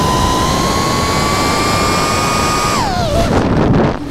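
DJI FPV drone's motors and propellers whining, slowly rising in pitch, over a constant rush of wind on the onboard microphone. About three seconds in the whine drops sharply as the throttle comes off and the drone tips into a dive, and the rush of air takes over.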